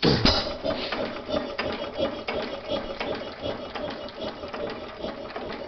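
Sparta Economy Model B 4 hp single-cylinder hit-and-miss engine running, a steady rhythmic mechanical clatter, with a louder low thump at the very start.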